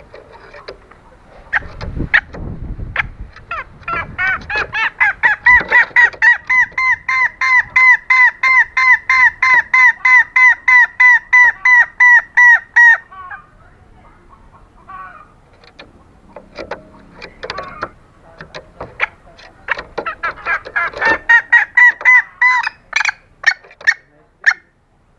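Female green junglefowl calling in a fast series of short, repeated notes, about three a second, for some nine seconds, then a second, shorter series near the end. This is the hen's call to the cock, used as a lure for males.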